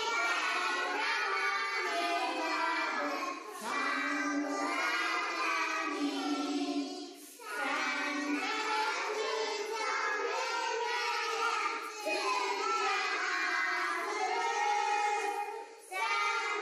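A group of young children singing a song together, with a few short breaks between phrases.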